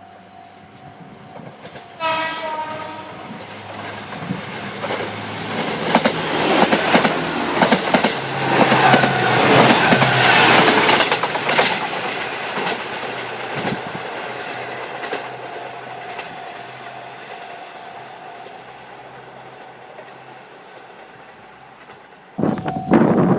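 Level crossing warning bell ringing as a diesel train sounds its horn about two seconds in, then runs over the crossing with wheels clattering on the rail joints. The clatter is loudest around ten seconds in and fades away, and a sudden loud burst with the bell comes near the end.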